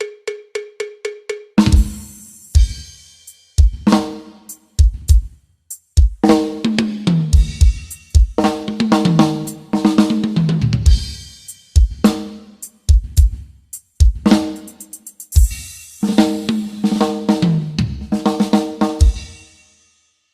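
Drum-kit sounds played through a sound system under test. It opens with a fast run of cowbell-like ticks for about a second and a half. Then come heavy bass-drum hits, snare and cymbal, and tom runs that fall in pitch, in phrases separated by short gaps.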